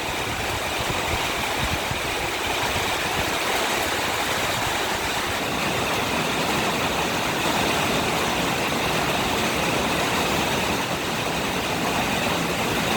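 Storm wind and rain making a steady rushing noise, with irregular low rumbling from gusts buffeting the microphone.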